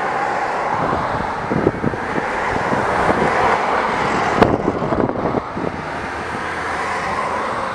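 Road traffic driving past: cars, SUVs and a small shuttle bus, a steady noise of tyres and engines on the road. A sharp click stands out about four and a half seconds in.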